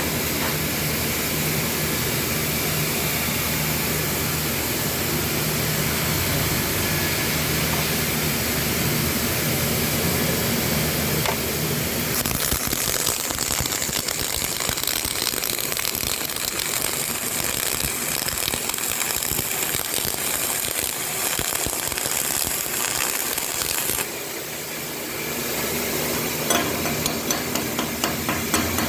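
CO2 (MIG/MAG) welding arc running steadily. Its sound changes about twelve seconds in, drops briefly a little after twenty seconds in, then comes back more unevenly near the end.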